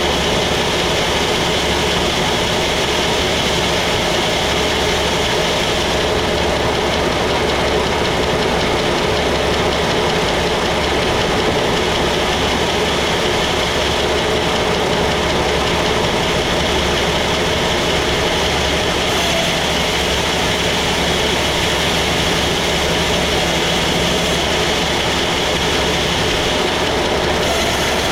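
Sawmill machinery running steadily with an engine-like drone that holds the same pitch and level throughout.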